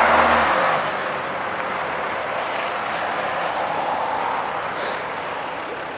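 Flatbed tractor-trailer passing close by on the road, its tyre and engine noise fading over the first second into a steady, quieter noise.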